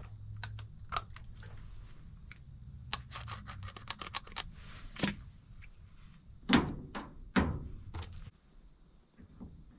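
Small clicks, taps and a few louder knocks from tools and metal parts being handled while a furnace capacitor is checked, over a low steady hum that cuts off about eight seconds in.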